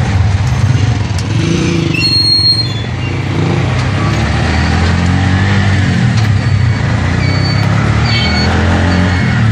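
Vehicle engine running steadily, heard from inside the cabin while driving in traffic, with engine sound rising and falling twice.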